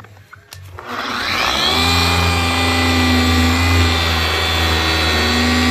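Makita electric polisher switched to spin mode, its motor whining up to speed about a second in and then running steadily as the wool pad buffs compound on a plastic headlight lens.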